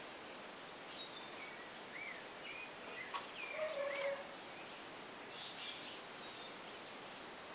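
Steady outdoor background hiss with scattered short chirping and whistling calls, busiest about three to four seconds in, where there is also a light knock.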